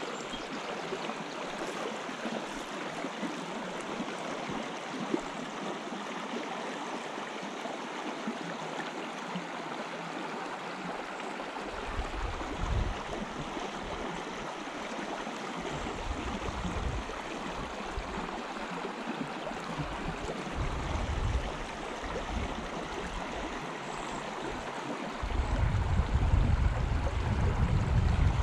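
A small river flowing with a steady rushing babble. Low rumbles buffet the microphone on and off from about halfway through, heaviest near the end.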